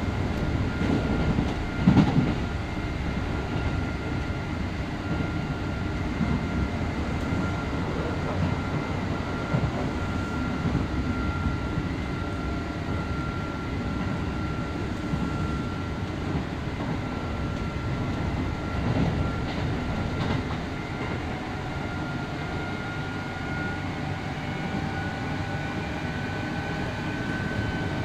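Kintetsu 8000-series electric train running, heard from aboard motor car Mo8230, whose DC traction motors are under field-phase control: a steady rumble of wheels on track with a thin whine that climbs slightly in pitch in the last third. A heavy knock sounds about two seconds in.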